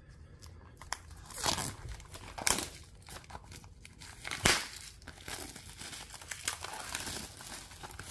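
Clear plastic shrink-wrap being torn and peeled off a cardboard trading-card box, crinkling and crackling irregularly, with louder rips about one and a half, two and a half and four and a half seconds in.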